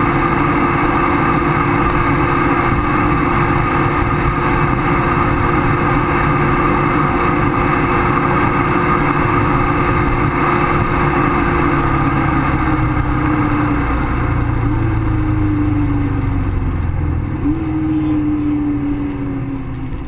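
BMW E36 M3's straight-six engine and wind noise heard from inside the cabin at about 260 km/h, the engine note steady at high revs. About halfway through the note falls away as the car slows, jumping back up briefly twice.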